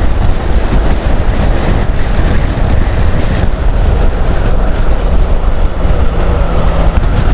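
Heavy wind rushing over a motorcycle helmet microphone at riding speed, with the Honda NC750's parallel-twin engine running steadily underneath.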